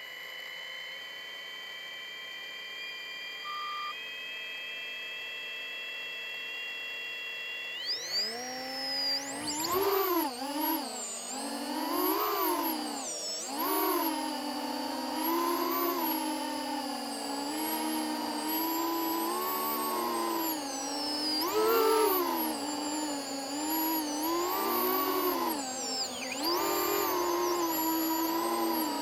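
FPV quadcopter's brushless motors and propellers: steady faint electronic tones with a short beep for the first eight seconds, then the motors spool up with a rising whine and keep rising and falling in pitch with the throttle in flight.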